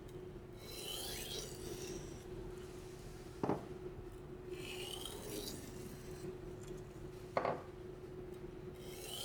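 Santoku blade in a sharpening guide drawn slowly across a 1000-grit whetstone, a soft scraping hiss on each stroke, with a short knock twice, about 3.5 s in and near the end. These are light single passes per side, taking the burr off the edge.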